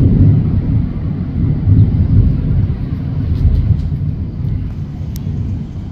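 Thunder rolling: a loud, low rumble that comes on suddenly, swells and falls unevenly, then slowly fades.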